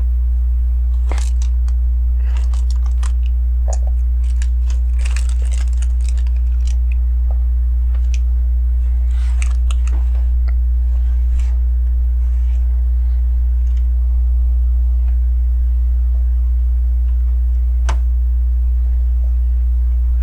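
Plastic LEGO pieces clicking and rattling in short scattered bursts as bricks are handled and pressed together, over a loud steady low hum.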